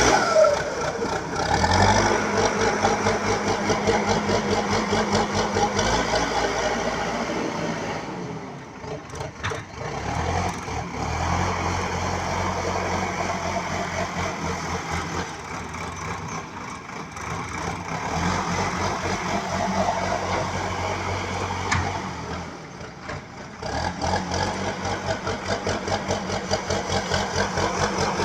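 A BULL HD 76 backhoe loader's diesel engine running with an even pulsing beat. It drops back twice to a quieter, lower note, then picks up again.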